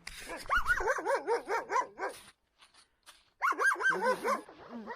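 A dog barking in quick, high yaps: a rapid run of about two seconds, a short pause, then a second brief run.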